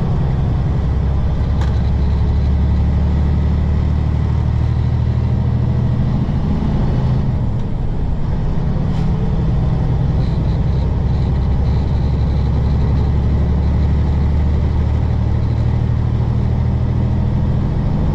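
Semi truck's diesel engine running steadily, heard inside the cab while driving, with a low drone. The engine note dips and changes about seven seconds in.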